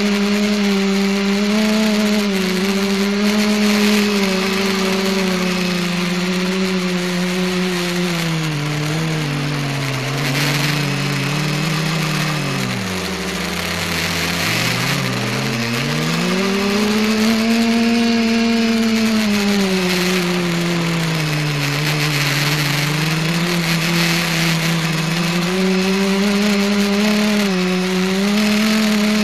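ETFD2 electric multicopter's motors and propellers buzzing right next to the onboard camera. The pitch wanders with the throttle, sinking low for a few seconds around the middle and then climbing back up, over a steady rush of air.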